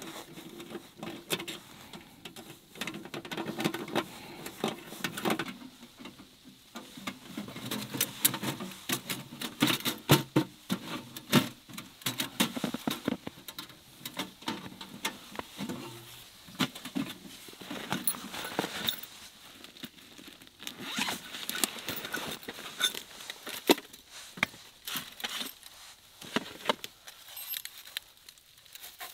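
Small sheet-metal camp wood stove and its sectioned stovepipe being handled and fitted together with gloved hands: irregular metal clicks, clinks and scrapes, with rustling of clothing and gear.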